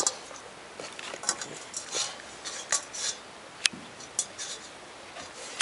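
A seven-week-old puppy pawing at and mouthing a stainless steel water bowl: irregular metallic clinks and knocks, with water sloshing in the bowl.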